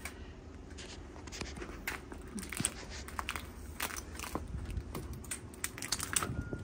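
Footsteps crunching over debris on the floor of a derelict railcar: a string of irregular sharp cracks and crunches.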